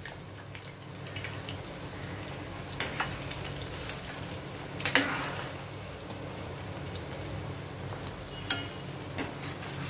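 Hot oil sizzling steadily around breadcrumb-coated chicken lollipops deep-frying in a steel pan. Now and then a metal perforated skimmer clicks and knocks against the pan as the pieces are turned, loudest about five seconds in. The lollipops are golden and crisp, nearly done.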